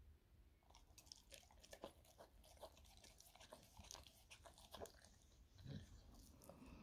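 A Staffordshire Bull Terrier chewing pieces of raw steak: faint, quick clicks and crackles of jaws and teeth, on and off.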